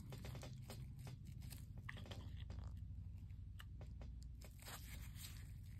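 Faint rustling of black nitrile gloves with many small scattered clicks and ticks of plastic and metal parts, as gloved hands fit the laser module and its screw back into a Smith & Wesson Bodyguard pistol's frame.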